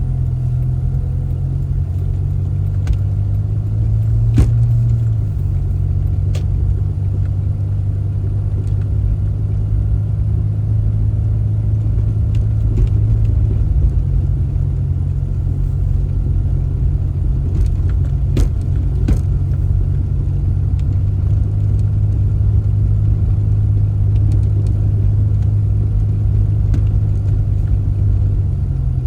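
Steady low drone of a car driving, with a few sharp knocks, one about four seconds in and two close together past the middle.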